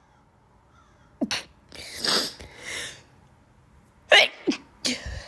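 A woman sneezing several times in a row, each sneeze led by a short catching in-breath. The loudest sneezes come about two seconds in and about four seconds in. She puts her fits of sneezing down to a dust allergy.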